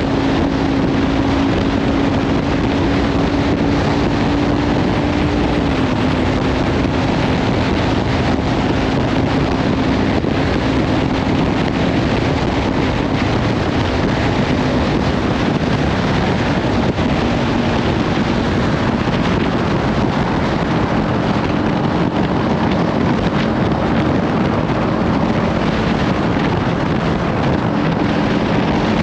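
Heavy wind noise on the microphone over a Kawasaki Ninja 500's parallel-twin engine running steadily at riding speed through a Leovince slip-on exhaust. The engine note drops slightly about six seconds in and rises a little again later.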